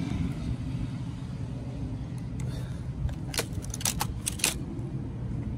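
Steady low rumble of distant road traffic, with a brief run of light jingling clicks a little past the middle.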